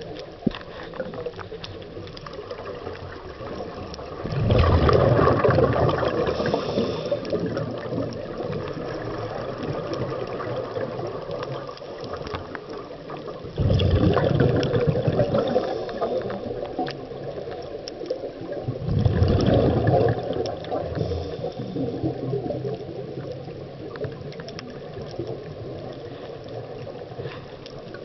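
Underwater sound of a scuba diver breathing through a regulator: three louder bubbling surges of exhaled air several seconds apart over a steady watery hiss.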